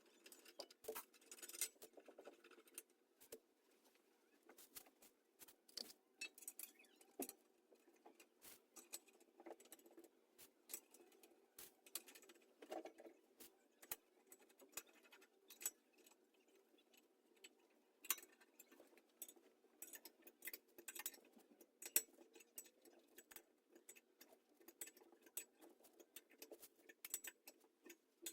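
Faint, irregular small clicks and metal clinks of bike parts and tools being handled during a BMX frame build, over quiet room tone.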